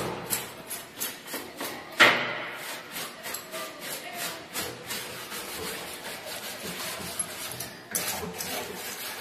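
A hand brush scrubbing stripper-softened old paint off a wooden antique vanity, in quick back-and-forth strokes about three a second, with one sharp knock about two seconds in. The paint is coming away where the stripper was put on.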